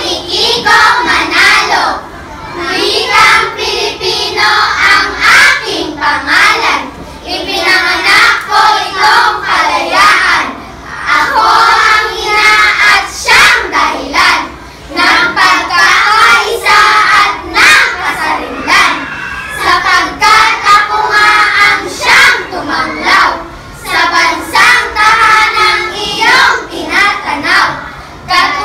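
A group of children's voices performing a poem in Filipino together in unison, phrase after phrase with short breaks between lines.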